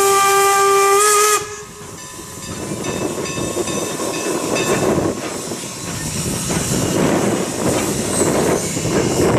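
Norfolk & Western No. 475's steam whistle blows one long blast, ending about a second and a half in, as the 4-8-0 steam locomotive sounds for a road crossing. The locomotive's working exhaust and the passing train then build into a steady rush of noise.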